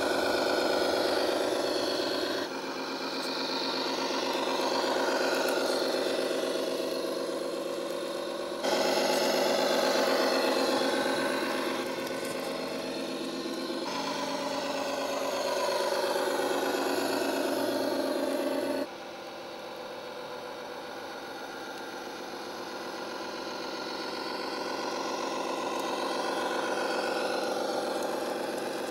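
Simulated V8 truck engine sound from an RC truck's sound module speaker, running and rising and falling in pitch with the throttle as the truck drives. The sound jumps abruptly three times.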